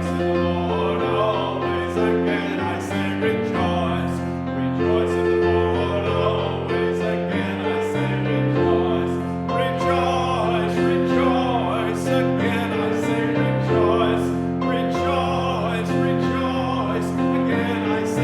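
Congregation singing a hymn with piano accompaniment, steady held chords.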